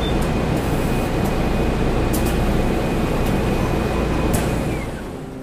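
Laboratory equipment running: a steady machine noise with a low rumble and a faint high whine that stops about four and a half seconds in. The noise fades away near the end.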